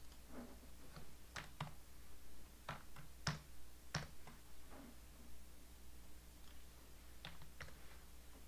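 Scattered computer keyboard keystrokes and mouse clicks, about ten in all, some in quick pairs, over a faint steady hum.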